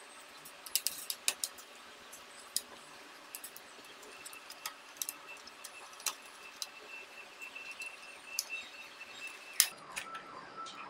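Small metallic clicks and taps of a screwdriver working the screws of a laptop's motherboard, and of tiny screws and parts being set down on a tabletop. The clicks are scattered, with a quick cluster about a second in and the sharpest click near the end.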